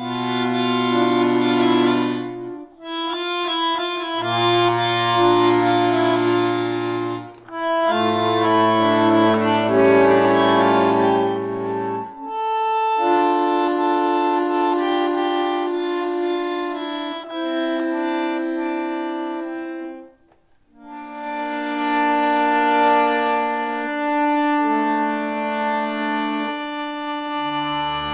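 Bandoneon playing a solo piece in long held chords, phrases separated by short breaks and one near-silent pause about twenty seconds in. Low bass notes sound under the chords during the first phrases.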